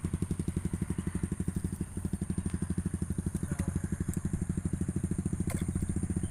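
A small engine running steadily with an even, rapid beat of about fourteen pulses a second, with a single sharp click about five and a half seconds in.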